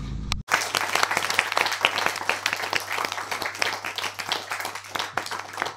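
Applause, many hands clapping, starting abruptly about half a second in, where a low engine hum cuts off.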